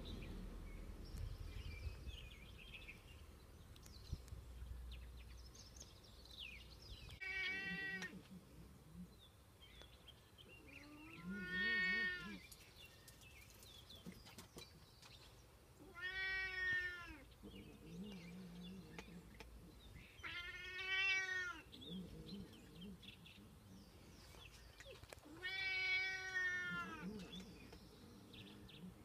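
A domestic cat begging for food with five drawn-out meows, each about a second long and rising then falling in pitch, repeated every four to five seconds.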